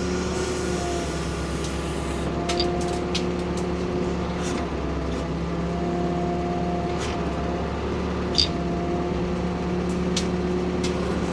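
Ford P-42 excavator's engine running steadily while it works, with scattered sharp clicks and knocks. The loudest knock comes about eight seconds in.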